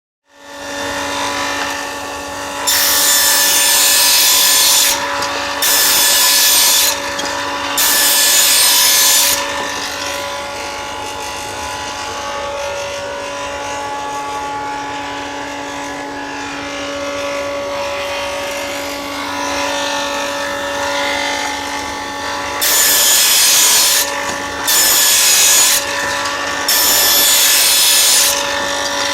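Table saw running with a steady hum, ripping thin 4 mm wooden strips. Each cut is a loud rasp lasting one to two seconds. Three cuts come close together a few seconds in, then the saw runs alone for a long stretch, then several more cuts follow near the end.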